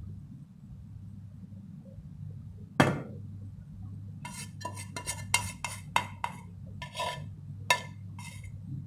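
A stainless steel pot knocking against a mixing bowl while the last of the syrup is poured out: one sharp knock about three seconds in, then a quick run of knocks with a brief ring from about four seconds on, over a low steady hum.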